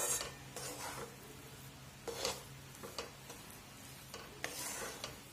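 Spatula stirring and scraping wheat flour roasting in ghee in a steel kadhai, with a soft sizzle. Short scrapes come irregularly, about once a second.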